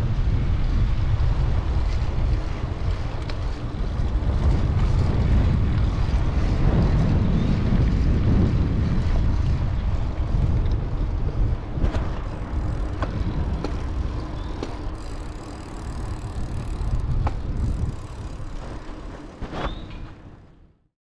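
Wind rushing over the microphone of a camera riding on a moving bicycle, with a few sharp clicks along the way. The rushing fades away near the end as the bike slows to a stop.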